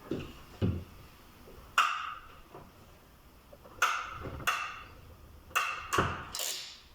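Crimping tool pressing contact pins onto the cable's conductors: a series of sharp, irregularly spaced clicks.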